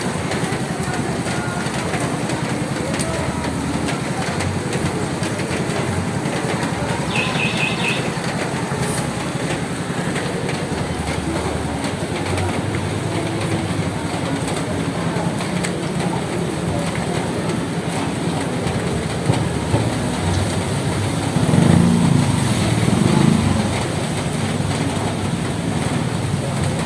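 Steady rain falling on a roof, a dense, even patter of drops. Past the two-thirds mark, a louder low rumble swells for about two seconds.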